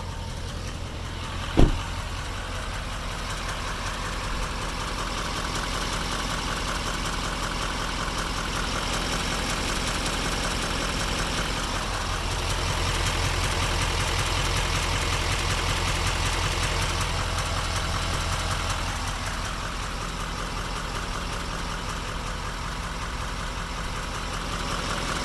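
LML Duramax 6.6-litre V8 turbodiesel, emissions equipment deleted, idling steadily with a fast, even clicking/knocking running through it; injector cleaner has not cured it. One sharp thump about a second and a half in.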